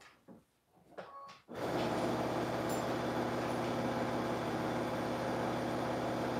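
Electric sewing machine stitching steadily around the edge of fabric. After a short pause with a few light clicks while the fabric is turned at a corner, the machine starts about a second and a half in and runs at an even speed.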